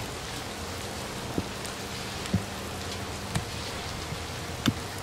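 Steady hiss of rain, with single sharp drop ticks about once a second over a faint low hum.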